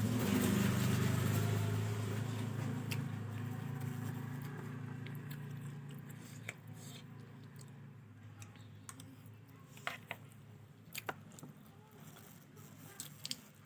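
A low rumble swells at the start and fades away over the first six seconds or so. After that come scattered sharp clicks of a utensil against a tiffin container, mixed with eating and chewing sounds.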